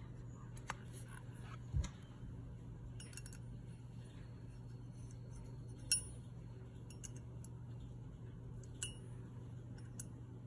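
A few short clicks and clinks as a brass faucet valve body, its cartridge and black cap are handled and fitted together, the loudest about six seconds in, over a steady low hum.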